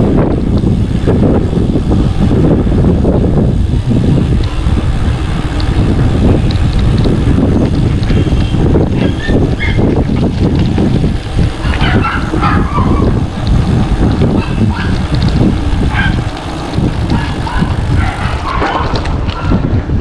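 Strong wind buffeting the microphone of a moving bicycle rider, with a dog barking a few short times in the second half.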